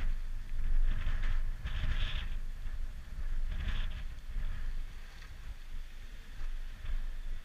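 Wind buffeting an outdoor camera microphone: an uneven low rumble with short hissy gusts about a second, two seconds and three and a half seconds in.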